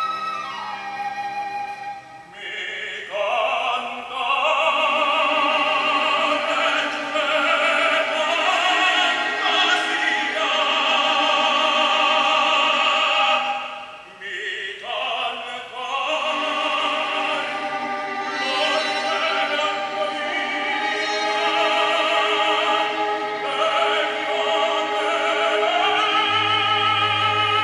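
Operatic tenor voices singing with strong vibrato, accompanied by an orchestra. The singing breaks off briefly about two seconds in and again about fourteen seconds in.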